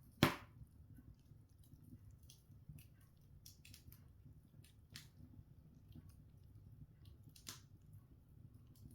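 Open fire of seasoned logs crackling: one sharp pop just after the start, another about seven and a half seconds in, and scattered small crackles over a faint low rumble.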